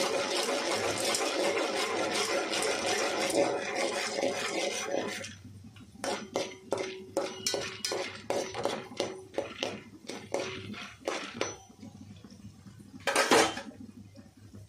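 Metal spoon stirring unpopped popcorn kernels in hot oil in a metal pot. For about the first five seconds there is a continuous scraping sizzle, then separate scrapes and clinks of the spoon against the pot, with one louder clank near the end.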